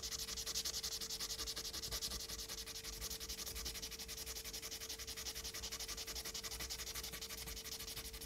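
A small plastic RC car suspension part being sanded on fine 1000-grit sandpaper laid flat, with quick, even back-and-forth strokes, several a second, to take material off so the part fits.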